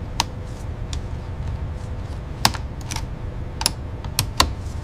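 About six light, sharp clicks and taps at irregular intervals, typical of small parts being handled. They sound over a steady low hum with a faint constant tone.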